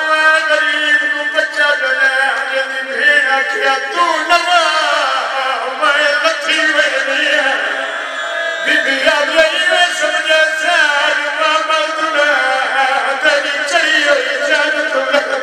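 A man's solo voice chanting a Punjabi mourning lament (a zakir's sung recitation at a majlis), held in long wavering phrases.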